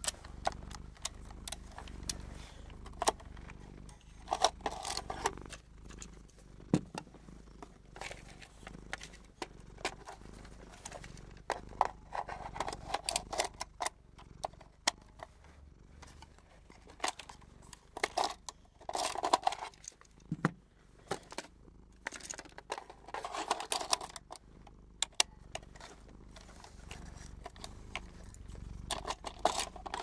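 Close-miked handling of vintage handheld film cameras: many sharp clicks, taps and light rattles of their plastic and metal parts, with a few scratchy clusters about a second long.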